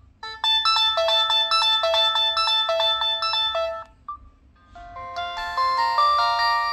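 Preloaded ringtones on a Samsung SGH-T249 phone: a short repeating melody of electronic tones that stops just past the middle, a brief beep, then a second, busier tune of rising runs of notes.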